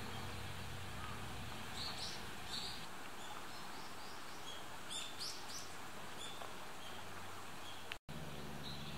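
Small birds chirping with short, high calls over steady outdoor background noise. A sudden brief dropout about eight seconds in is followed by a faint low hum.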